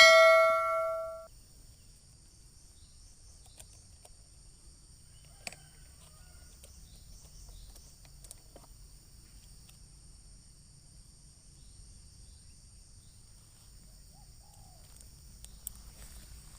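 A metallic clang ringing out and fading away over the first second, then a steady high insect drone with a few faint ticks.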